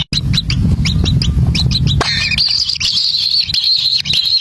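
Kingfisher chicks begging at the nest: quick, short, rising chirps several a second over a low hum. About two seconds in the hum stops and the calls run together into a continuous shrill, wavering squeal.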